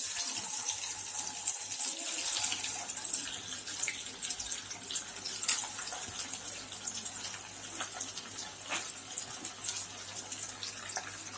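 Boiled eggs frying in hot oil and chicken 65 masala in a kadai: steady sizzling with scattered crackling pops.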